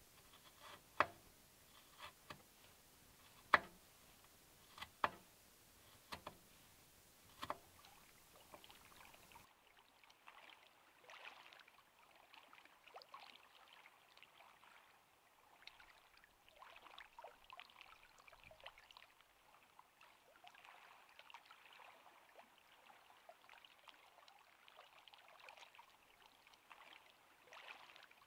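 A kitchen knife chopping on a wooden cutting board, eight or so sharp taps at uneven intervals of about a second. After about nine seconds this gives way to a soft, steady, uneven patter of water.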